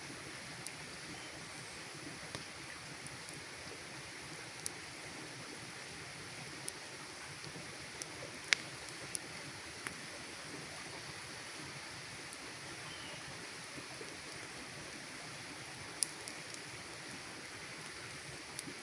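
Wood campfire burning, with scattered sharp crackles and pops at irregular moments over a steady rushing hiss; the loudest pop comes about eight and a half seconds in.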